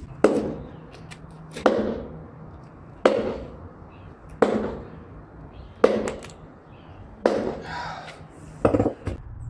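A 10 lb Bahco sledgehammer striking a small timber-framed test wall sheathed in screwed plasterboard: six heavy blows about a second and a half apart, then a few lighter knocks near the end.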